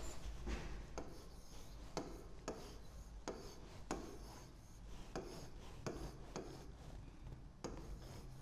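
A stylus writing on the glass of an interactive touchscreen board: faint, short scratches and taps with each stroke of the digits, about two a second and unevenly spaced.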